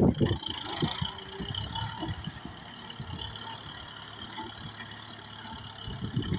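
Kubota tractor engine running under work, louder in the first second, then steadier and quieter.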